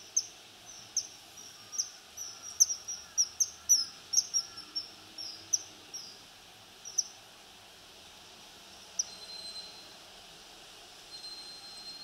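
Common kingfisher giving its call notes: short, sharp, high-pitched notes repeated in an uneven series for about seven seconds, closest together in the middle, then stopping. These are its call notes (地鳴き) rather than its song.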